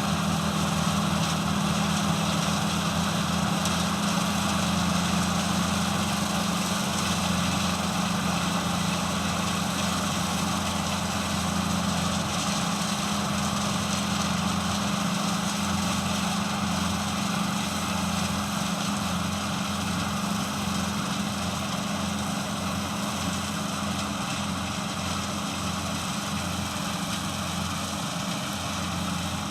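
Engine running steadily, with a continuous low hum and a noisy mechanical wash over it.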